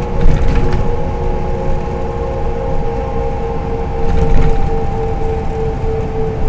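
Inside a LiAZ-5292 city bus under way: low road and engine rumble with a steady whine that sinks slightly in pitch, and brief rattles about half a second in and again about four seconds in.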